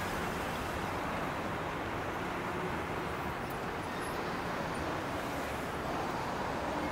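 Steady city street ambience: a constant hum of traffic, even throughout with no sudden sounds.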